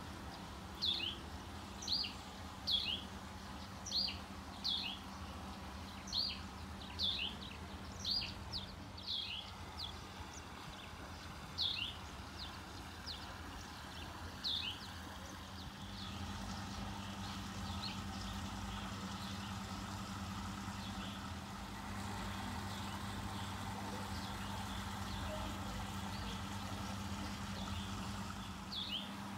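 A bird calling repeatedly with short falling chirps, about one a second, thinning out after the first half. About halfway through, a steady low hum comes up beneath it.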